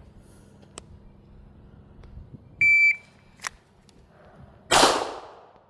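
A shot timer gives one steady start beep, followed by a sharp click and, about two seconds after the beep, a single pistol shot from a Beretta 92 fired double action, its noise fading over about half a second.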